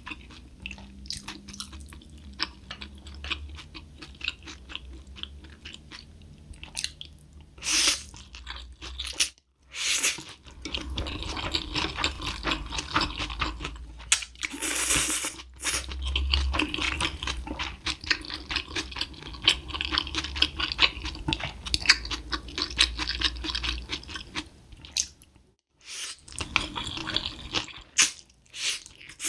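Close-miked eating of Buldak stir-fried spicy ramen noodles: wet slurping of noodles off a spoon and steady chewing, with many small irregular clicks throughout.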